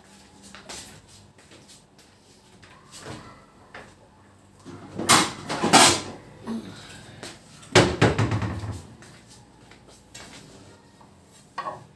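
Cookware being handled: a lid and pan knocked and set down in two loud spells of clattering, about five and eight seconds in, the second with a heavier thud. This is the pan being covered so that the kofta can smoke over a hot coal.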